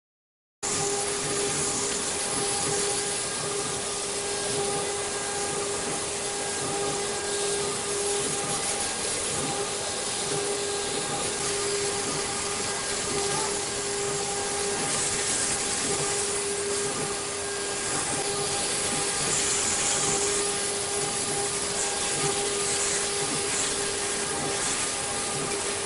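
Flow abrasive waterjet cutting titanium plate: a loud, steady hiss of the high-pressure jet with a steady droning tone underneath, starting about half a second in.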